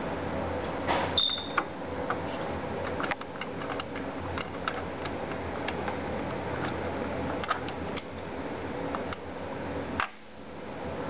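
Scattered small clicks and taps from a CPU being handled and set into its motherboard socket, over a steady fan hum.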